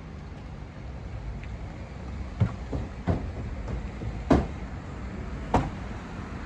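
Footfalls and hand knocks on the wooden boards of a playground climbing structure as a child scrambles up it: four dull thumps over a few seconds, starting about two seconds in, over a steady low rumble.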